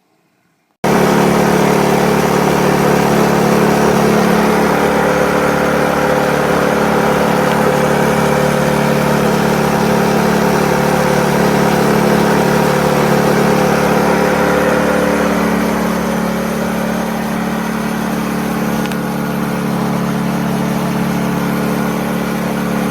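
Hyundai HY2000si inverter generator's small four-stroke engine running steadily and loudly. It cuts in suddenly near the start, and its note drops slightly and settles lower about two-thirds of the way through.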